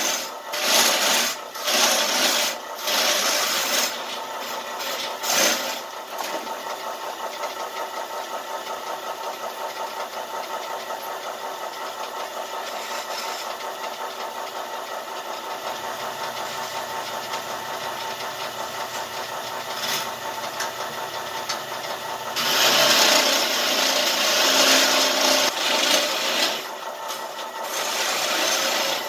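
Craftsman Model 103 four-speed wood lathe running with a red oak spindle turning in it. Hand-held work against the spinning wood comes in short scraping stretches in the first few seconds, the motor and belt drive run on alone with a steady hum and fast flutter for about fifteen seconds, then a few seconds of louder scraping on the wood near the end.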